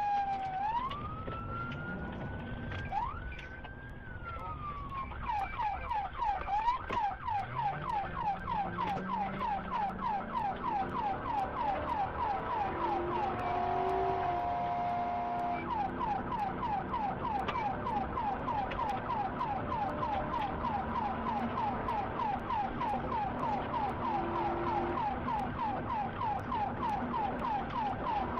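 Police car siren in a slow wail, its pitch falling and rising, switching after about five seconds to a fast yelp of roughly three to four sweeps a second, with vehicle engine and road noise beneath.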